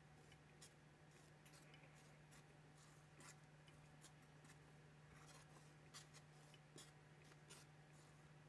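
Near silence: faint scattered ticks and scratches of a wooden skewer swirling through cake batter and touching the metal tube pan, over a low steady hum.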